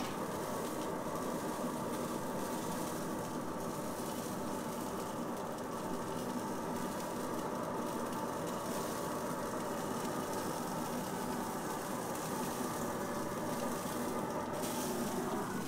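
A steady mechanical drone, like an engine running at idle, holding level throughout and cutting off near the end.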